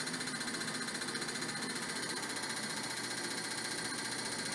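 ASNU injector tester bench firing a set of fuel injectors into glass measuring tubes, a steady rapid ticking buzz that keeps an even rhythm.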